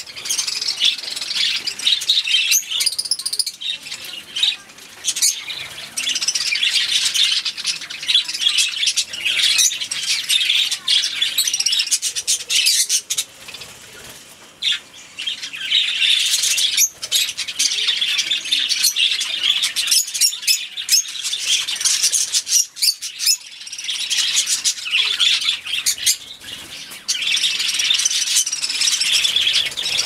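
A flock of budgerigars chattering and warbling nonstop, a dense mix of high chirps, squawks and quick clicks. The chatter briefly thins out about halfway through.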